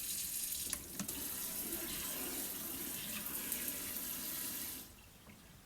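Water running from a 3-way kitchen mixer tap into the sink, with a couple of clicks about a second in. The flow stops near the end.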